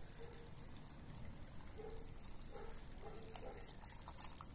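Brine poured from a glass jug into a glass jar packed with cracked green olives, a faint trickling pour as the jar fills.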